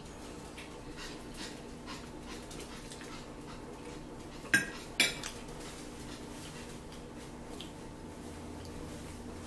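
Two sharp clinks of dishes or cutlery about half a second apart, near the middle. Faint clicks of mouth-closed chewing run under them, over a steady low hum.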